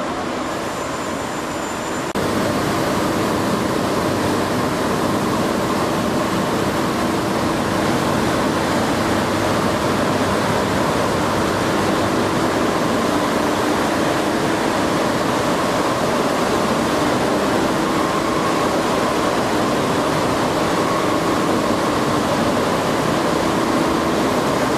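Steady, loud machinery noise of the generating units in a hydroelectric power station's machine hall, a dense roar with a faint steady hum running through it. It grows a little louder about two seconds in.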